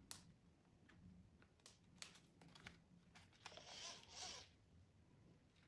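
Near silence with faint handling of a small emergency radio: a few light clicks and a brief soft rustle about three and a half seconds in.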